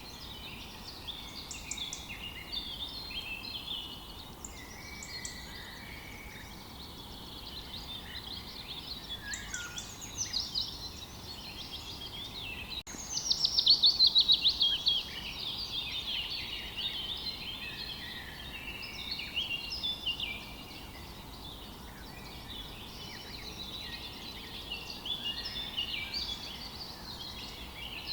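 Several small songbirds chirping and singing over one another in a steady chorus of short, high notes. About halfway through, one bird gives a louder, fast run of falling notes lasting a couple of seconds.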